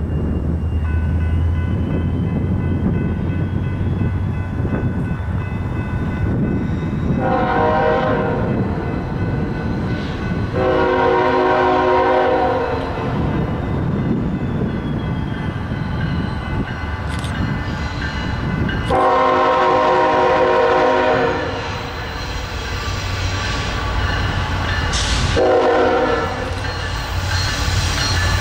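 Air horn of a Norfolk Southern ET44AC diesel locomotive leading a freight train, sounded in separate blasts: two long ones, a long one after a pause, a shorter one, and another starting near the end. Under them runs the steady rumble of the approaching locomotives.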